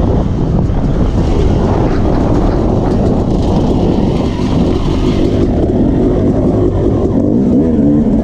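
Yamaha YZ250 two-stroke dirt bike engine running hard while the bike is ridden on a trail, the revs rising and falling, climbing again near the end.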